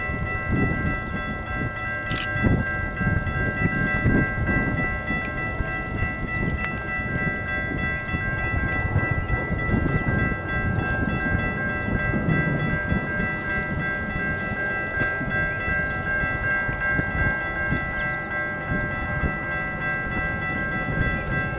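Level crossing warning bells ringing steadily, a clear ringing held without a break. Beneath it is the low rumble of an SSR freight train's diesel locomotives approaching, with wind buffeting the microphone.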